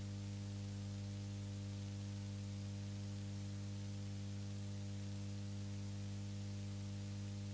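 Steady electrical mains hum, a low drone with its overtones, and a thin, steady high-pitched whine above it, unchanging throughout.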